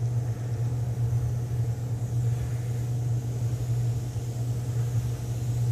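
Steady low hum of an electric motor from the airbrush spray-booth setup, with a faint airbrush hiss as paint is sprayed.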